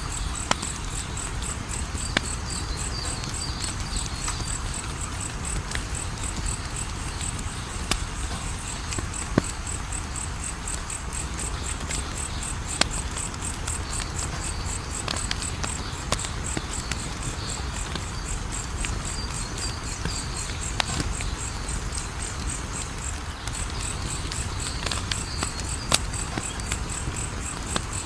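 Wood fire crackling, with scattered sharp pops over a low rumble of flame. Insects chirp in a steady, high-pitched pulse throughout.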